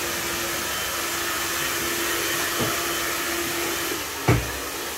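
Electric hair dryer blowing steadily, a loud even rush of air with a faint hum from its motor. A single thump about four seconds in.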